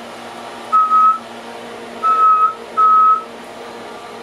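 Three short, steady high-pitched tones, each about half a second long, coming at uneven intervals over a low steady hum.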